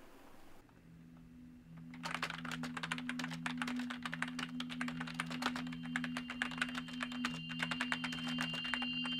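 Rapid typing on a computer keyboard, starting about two seconds in, over a low pulsing hum.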